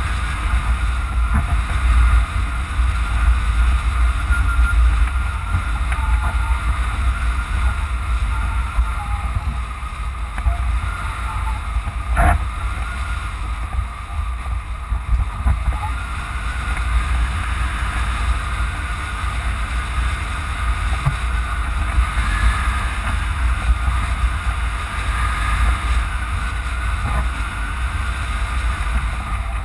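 Wind rushing over a hang glider in flight and buffeting the camera microphone: a steady heavy rumble with a faint wavering whistle above it, and one sharp click about twelve seconds in.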